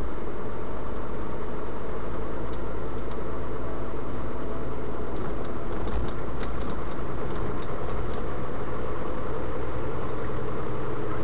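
Steady engine and road noise of a vehicle driving, heard from inside the cab, deep and unchanging.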